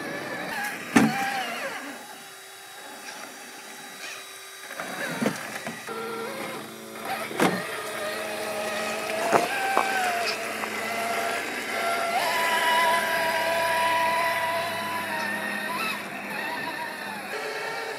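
Electric drive motor and geartrain of an Axial SCX6 1/6-scale RC crawler whining, the pitch shifting and gliding with throttle as it crawls, with sharp knocks of tyres and chassis against rock about a second in and a few more later. Water splashes as it wades through the shallow stream.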